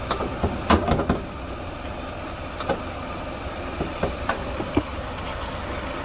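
The hood of a 2009 Mitsubishi Outlander being unlatched, lifted and propped open: a few sharp clicks and clunks, the loudest about a second in, with a steady low rumble under them.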